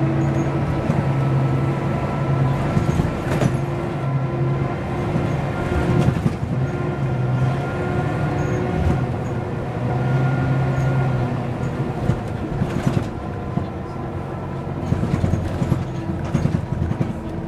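Mercedes-Benz O405 N² city bus's diesel engine heard from inside the passenger saloon, running with a steady hum and a few constant whining tones that fade and come back. Short knocks and rattles from the body and fittings come through now and then, more often in the second half.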